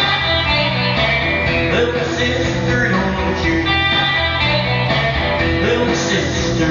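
Live rock-and-roll music led by guitar, loud and unbroken.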